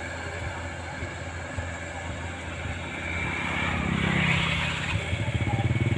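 Engines of rice-harvest machinery running: a small tracked carrier loaded with rice sacks, with a combine harvester further off. The sound steadies at first, grows louder from about halfway through, and turns into a fast, even chugging near the end.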